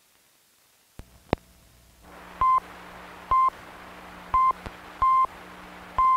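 Short electronic beeps of one steady pitch, each about a fifth of a second long, repeating roughly once a second at slightly uneven spacing over a film-soundtrack hiss. The sound track starts about a second in with a click and a sharp pop.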